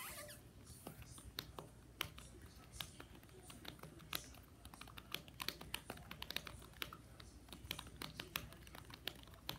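Keys tapped on a computer keyboard: faint, irregular clicks, some in quick runs.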